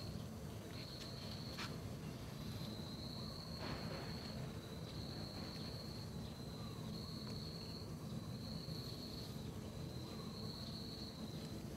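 An insect trilling on one high pitch in runs of about a second with short breaks, over a steady low background rumble.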